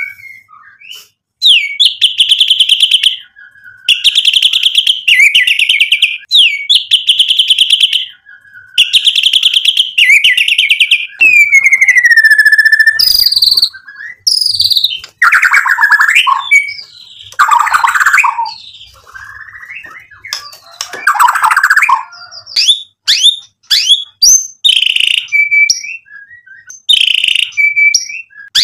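White-rumped shama (murai batu) in full song, a varied song built from its repertoire of mimicked phrases. It opens with a string of fast trilled bursts about a second each, then a falling whistle. Harsher rasping phrases follow around the middle, and short upslurred whistles come near the end.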